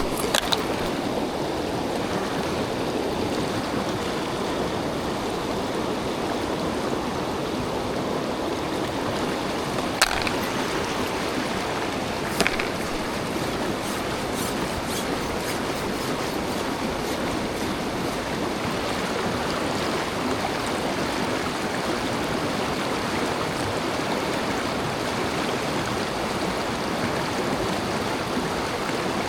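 Mountain stream water rushing steadily over rocks, with a few brief sharp clicks, the loudest about ten seconds in.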